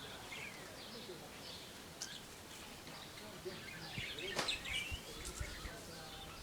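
Small birds chirping and calling in short, scattered, sweeping notes over faint outdoor background noise, with a few low thumps about four to five seconds in.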